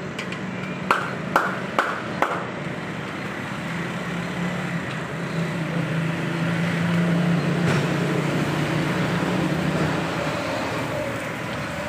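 Puris frying in a large iron karahi of hot oil. Four sharp metal clinks of a slotted spoon against the wok come in the first couple of seconds, then a steady low rumble and hiss that grows louder in the middle as fresh dough goes into the oil.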